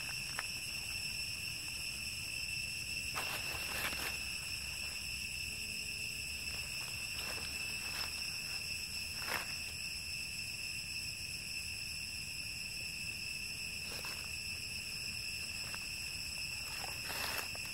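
Steady, high-pitched drone of insects in the forest, one unbroken tone with overtones, with a few short rustles of dry leaf litter.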